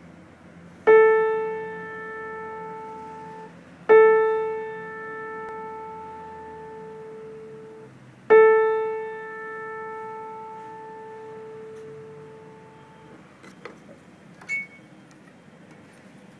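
A piano note struck three times on the same mid-range pitch, each note ringing for a few seconds and then cut off sharply. A couple of light clicks follow near the end.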